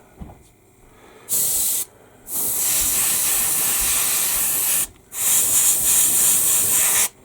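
Airbrush blowing compressed air in three bursts of hiss, a short one and then two long ones with brief gaps between. The air is used to test whether the super-glued photo-etch parts have held.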